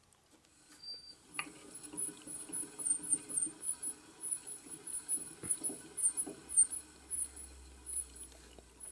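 Harley-Davidson flywheel assembly being rotated by hand between the centres of a truing stand: short, high squeaks about four times a second, with soft rubbing and a few light clicks underneath.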